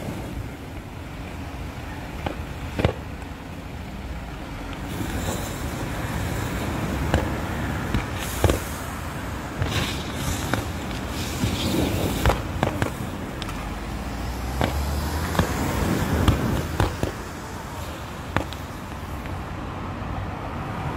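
Burning lithium-ion battery pack of a personal mobility device in thermal runaway: a steady hissing jet of flame broken by irregular sharp pops and cracks, about every second or two, like fireworks.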